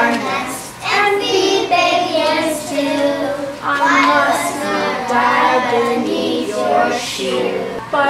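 A child singing a song in phrases, with held notes.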